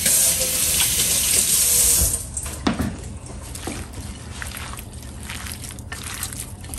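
A kitchen water tap runs for about two seconds and is shut off. Then come quieter wet squishes and small clicks of hands mixing marinated sliced beef.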